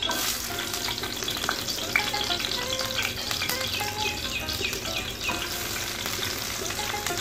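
Sliced red onion and green chilli sizzling in hot oil in a frying pan, a dense steady crackling hiss that starts suddenly. One sharp knock about two seconds in.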